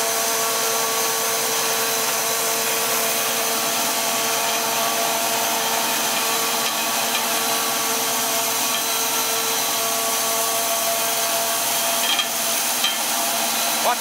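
Two-stage recycling machine running steadily: a constant hiss with a held humming tone, and a couple of light knocks near the end.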